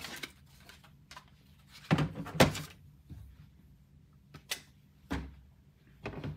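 Hard plastic graded card slabs being handled and set down: a pair of thunks about two seconds in, the second the loudest, then a light click and another thunk.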